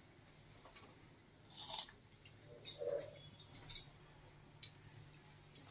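A few faint, soft plops and splashes, spread over a couple of seconds, as handfuls of soaked rice are dropped into boiling milk in a cooking pot.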